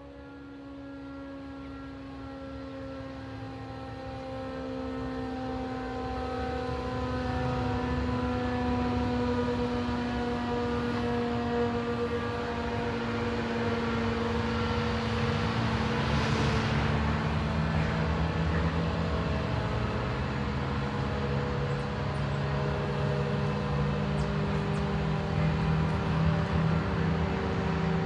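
ACA Hurricane outdoor warning siren winding down, its tone falling slowly in pitch, with a low rumble that grows louder underneath.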